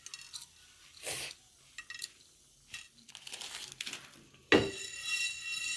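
Metal kitchen utensils clinking against a pan: a few light clicks and scrapes, then about four and a half seconds in a sharp metallic clang that rings on.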